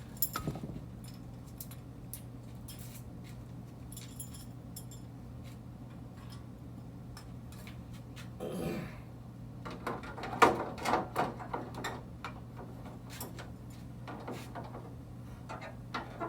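Scattered light metallic clicks and clinks of hardware and hand tools being handled while a truck grille is fitted, with a run of louder knocks about ten seconds in. A steady low hum runs underneath.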